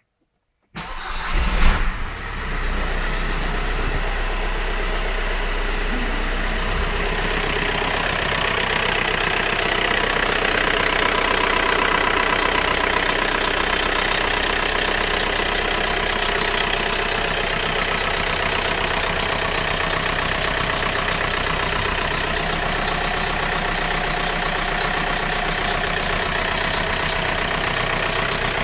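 VW Golf IV's AJM 1.9 TDI four-cylinder diesel starting, then idling steadily with a squeak from the engine.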